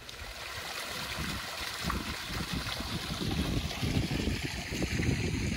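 Water from the stock tank pool's filter-pump return jet splashing into the pool, a steady watery rush that swells in over the first two seconds, with an uneven low rumble of wind on the microphone.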